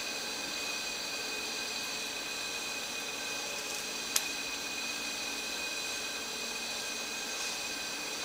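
Steady mechanical whir and hiss with several even high-pitched tones, unchanging throughout, and one sharp click about four seconds in.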